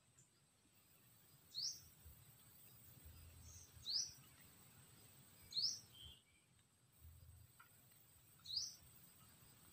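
A bird's short, high call, a quick falling note, repeated four times every two to three seconds, over a faint steady high-pitched whine.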